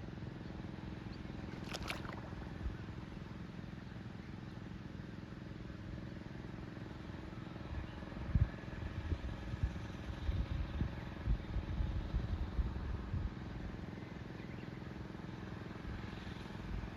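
A small engine running steadily, with a sharp click about two seconds in and wind buffeting the microphone in the middle of the stretch.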